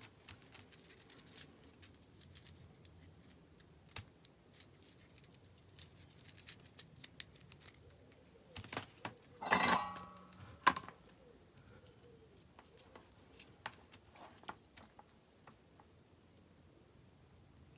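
Soldering at the bench: scattered light clicks and ticks from the iron, solder and wire being handled, with one louder short crackling burst about halfway through as the hot iron meets the Vaseline-coated wire.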